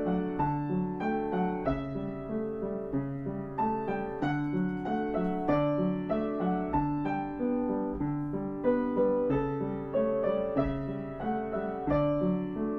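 Background piano music: notes struck at an even pace over a repeating low accompaniment.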